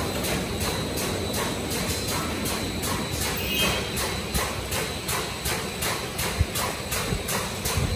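Paper tube making machine running, with a steady mechanical clatter and an even ticking of about three clicks a second.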